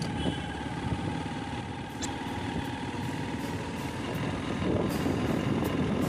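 Motorcycle engine running steadily while riding along a road, with a continuous rumble that grows a little louder near the end.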